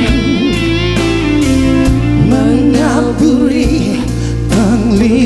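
A singer draws out the end of a sung line with vibrato over a live band playing a slow rock ballad, with guitar, bass and drums, then starts the next line near the end.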